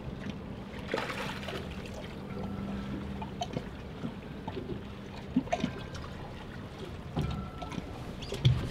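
Water lapping and trickling against the hull of a small boat, with a low steady hum for the first few seconds and a few short knocks, the loudest near the end.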